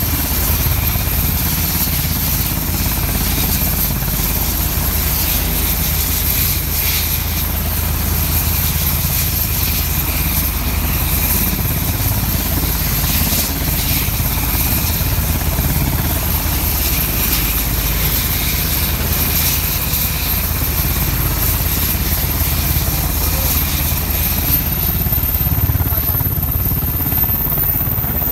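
UH-60 Black Hawk helicopter running on the ground with its rotors turning, warming up before takeoff: a steady heavy rotor thrum with a constant high turbine whine from its twin T700 turboshaft engines.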